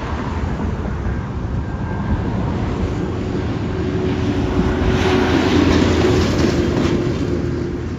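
A large vehicle passing close by over a steady low rumble, growing louder to a peak about five to seven seconds in, then easing off.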